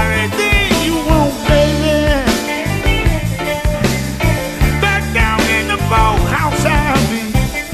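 Electric blues band recording: a lead line bending and wavering in pitch over a steady bass line and drum kit.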